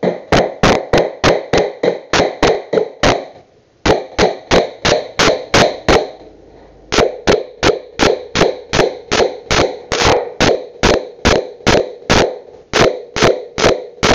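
Hammer driving a nail into a wooden board: quick, steady blows, about three or four a second, each with a short metallic ring, with two brief pauses between runs of strikes.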